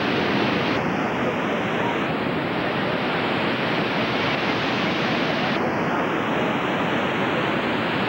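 Iguazu Falls' huge volume of water plunging over the cliffs, a steady, loud rushing roar.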